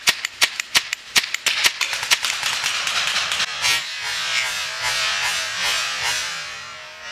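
Paintball marker firing rapidly, about four to five sharp shots a second, for the first two seconds or so. The shots then give way to a steady hiss.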